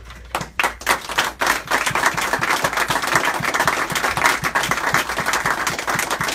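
A group of people applauding: scattered claps begin a moment in and quickly fill out into steady, dense clapping.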